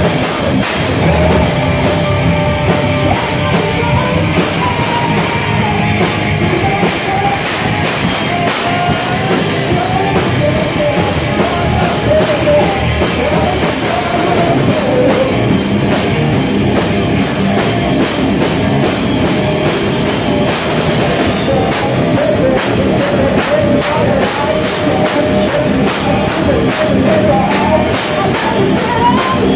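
Live rock band playing loud, with drums and a woman's voice singing into a microphone over the band.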